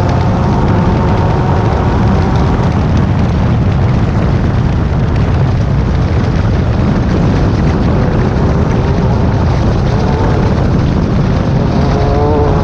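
Class 10 off-road race car running at speed. Its engine note sits under a loud, steady rumble of wind and rough ground, and climbs in pitch again near the end.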